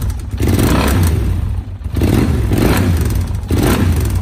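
Yamaha TRX 850's parallel-twin engine running, its throttle blipped in three short revs that rise and fall about every one and a half seconds over a steady idle.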